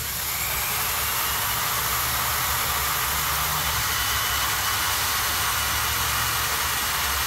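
Electric drill running steadily, spinning a hard-plastic threaded piece while a strip of coarse sandpaper is held against the threads: a steady sanding hiss over the drill motor's hum.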